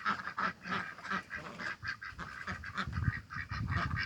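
A flock of domestic ducks quacking, many short calls overlapping in quick succession.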